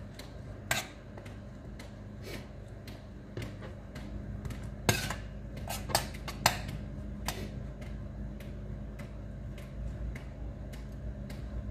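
Occasional light knocks and clinks of kitchen handling: pieces of eggplant and a knife against a stainless steel pan and a cutting board, over a steady low hum.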